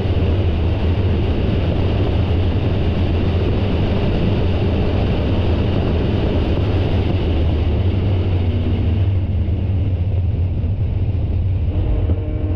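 Onboard sound of a Spec Miata race car at speed: a steady, loud drone of engine, wind and road noise. The higher part of the noise falls away about nine seconds in, and near the end a few engine tones rise in pitch.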